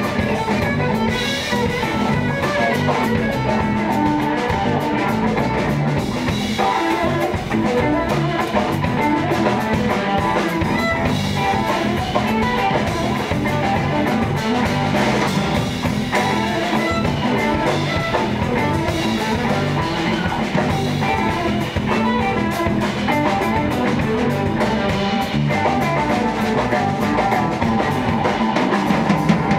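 A live band playing: semi-hollow electric guitar over drum kit and electric bass, steady and unbroken.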